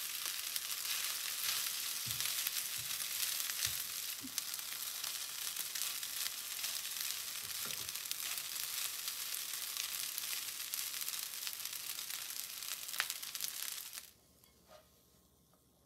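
Egg-coated rice and chopped scallions sizzling in oil in a frying pan as they are stir-fried, with small scrapes and knocks of a plastic spatula against the pan. The sizzling cuts off suddenly near the end.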